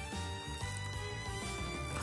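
Background music with sustained tones over a pulsing bass.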